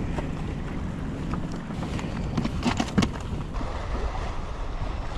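Wind buffeting the microphone over water lapping around a kayak on the open water, with a short clatter of knocks a little past the middle.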